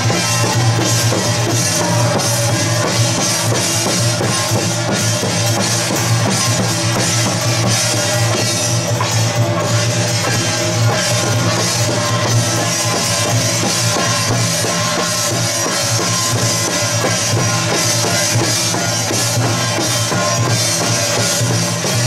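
Taiwanese folk drum-troupe percussion: a small drum, gongs and hand cymbals beaten together in a steady, dense rhythm, with the cymbals' metallic wash running over it.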